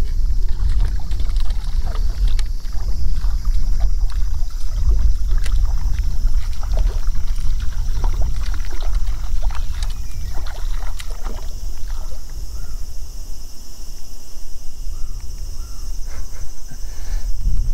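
Wind buffeting the microphone in an uneven low rumble, with a steady high insect buzz and scattered small clicks over it.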